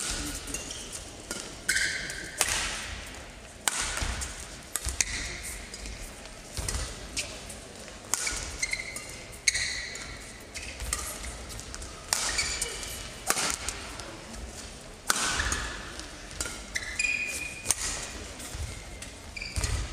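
Badminton singles rally: sharp racket-on-shuttlecock hits about once a second, with shoes squeaking and thudding on the court mat between shots.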